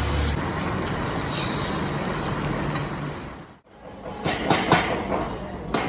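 Steady hiss and sizzle from a huge pilaf kazan steaming over the fire. After a sudden break about three and a half seconds in, a run of sharp metal clicks and scrapes follows, from a steel skimmer and lids against the pot.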